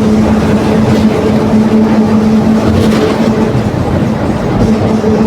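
Volksbus 17.230 OD bus under way, its drivetrain giving a loud, steady drone with a constant-pitch whine: the growling ('roncando') of the rear differential. The whine drops out briefly about a second in and again near the end.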